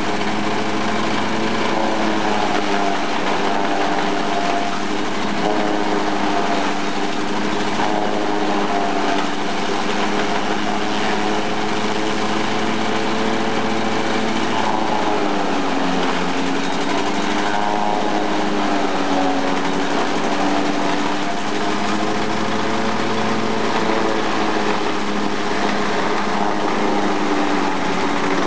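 Brahman 12 hp diesel engine running steadily, driving a JF-40 forage chopper through belts and pulleys as stalks are fed in and chopped. Its pitch sags briefly twice past the middle as the engine takes the cutting load, then recovers.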